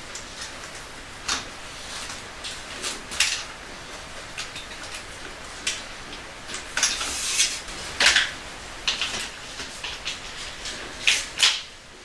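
Metal clicks, clanks and knocks of a folding bicycle repair stand being set up: the legs are spread, the post raised and the clamp head adjusted by hand. A short scraping rattle comes about seven seconds in, and the loudest knocks come around eight and eleven seconds.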